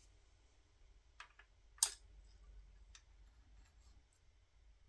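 A few light clicks, the loudest about two seconds in, as a telescoping magnetic pickup tool is worked into the engine's head to fish out a loose pushrod.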